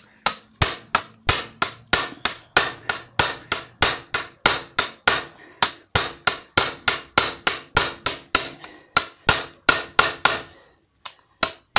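Steady hammer blows, about three a second, each a sharp ringing metal strike. The hammer drives a ground-down hammer head used as a drift against the bent rim of a Honda Dio AF-62 scooter wheel to straighten it. The hammering stops near the end, then starts again.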